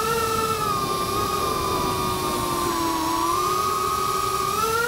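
FPV quadcopter's brushless motors and propellers whining in flight, the pitch sliding up and down with the throttle: it dips about three seconds in and climbs again near the end.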